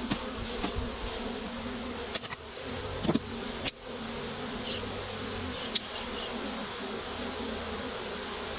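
Honeybees buzzing in a steady, dense hum, with a few sharp knocks about two to four seconds in.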